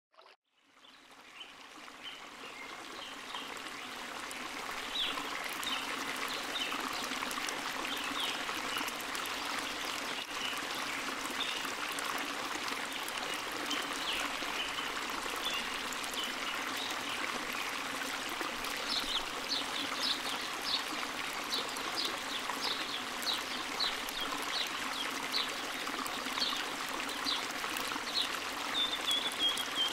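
Small waterfall pouring and splashing steadily into a pool, fading in over the first few seconds. Birds chirp over it in short high calls, more often in the second half.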